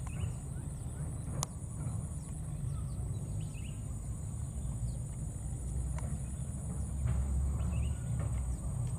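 Outdoor ambience: a steady high drone and a low rumble, with scattered faint short chirps and two sharp clicks, about a second and a half in and about six seconds in.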